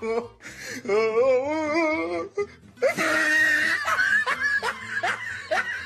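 People laughing: a long wavering laugh, then quick repeated bursts of laughter over a hiss, with music underneath.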